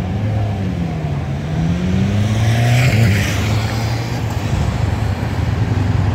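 Road traffic: a vehicle engine drops and then climbs in pitch as it accelerates, and a vehicle passes close about three seconds in, with more traffic hiss near the end.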